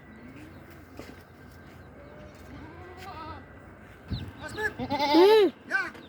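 Goats bleating: a few faint calls, then a run of loud, wavering bleats about four and a half to six seconds in, the loudest near five seconds.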